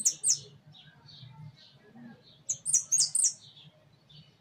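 Saffron finch chirping: two loud, high chirps right at the start and a quick run of loud, high notes just past the middle, over a steady series of softer chirps.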